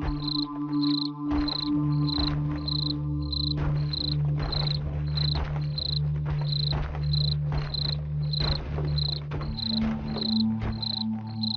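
Horror-soundtrack ambience: a cricket chirping steadily, about two to three chirps a second, over a low sustained drone that shifts pitch a few seconds in and again near the end.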